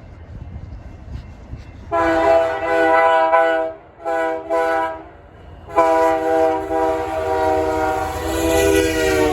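Freight locomotive's multi-chime air horn: a long blast, two short toots, then a long blast held on, its pitch sagging slightly near the end, over the low rumble of the approaching train. The playful, irregular pattern is a horn show, not a standard crossing signal.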